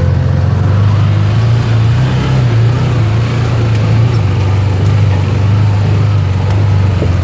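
Can-Am Maverick side-by-side's engine running under load as it climbs a small creek waterfall, its pitch holding fairly steady with small rises and dips.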